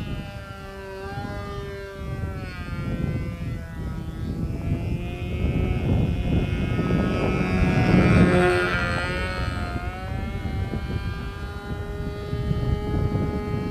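RC aeroplane's Evolution .36 two-stroke glow engine, with an 11x4 propeller, buzzing in flight overhead. Its pitch rises and falls as the plane manoeuvres and passes, loudest about halfway through. Wind rumbles on the microphone underneath.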